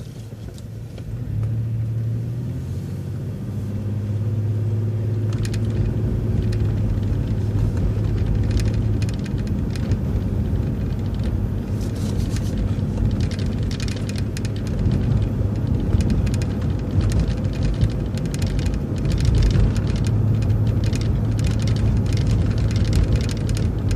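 City transit bus engine and drivetrain heard from inside the bus, pulling away out of a right turn. The steady engine hum grows louder over the first few seconds, and from about halfway on many short rattles and clicks come from the bus body over the road.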